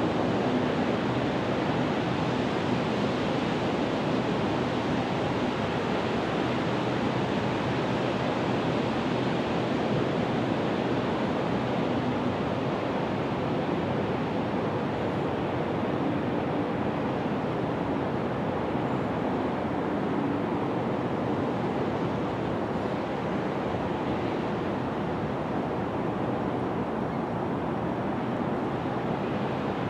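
Steady rushing noise with no distinct sounds standing out.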